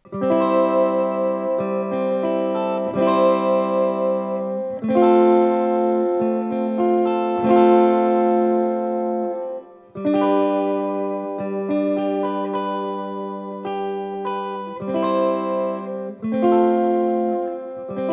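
Flight Vanguard solid-body tenor electric ukulele with steel strings, strummed with a pick that clicks, played through an amp with EQ and reverb on. A run of chords, each ringing on, with a brief drop-out just before halfway.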